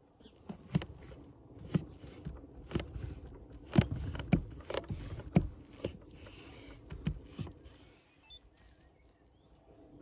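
Meat cleaver cutting raw fat on a wooden cutting board: irregular knocks of the blade against the board, one or two a second, stopping about eight seconds in.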